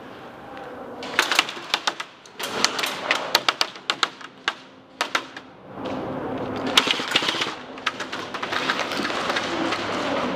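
Airsoft gunfire: sharp cracks, singly and in quick clusters, with BBs striking the wooden barriers. From about six seconds in, a denser steady rustle of movement runs under the shots.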